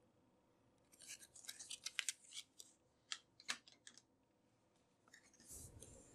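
Cardboard and paper packaging being handled: a cluster of crisp crackles and sharp clicks from about a second in until about four seconds in. Near the end comes a softer sliding scrape as the box's inner lid is lifted.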